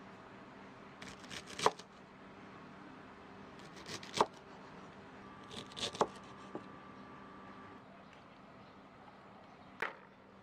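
Cleaver chopping through a bundle of Chinese chives onto a wooden chopping board: each stroke a short crisp crunch of stalks ending in a sharp knock on the wood. Three strokes come about two seconds apart, with one more knock near the end.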